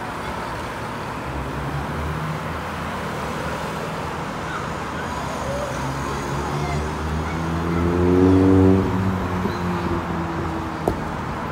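Road traffic passing steadily. One vehicle's engine passes close and is loudest about eight seconds in, then fades. A short sharp knock near the end.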